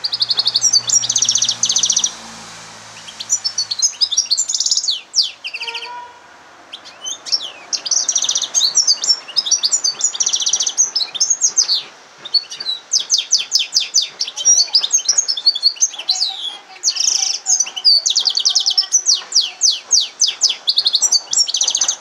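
Yellow-fronted canary × domestic canary hybrid singing: fast, high trills and twittering phrases, broken by a few short pauses.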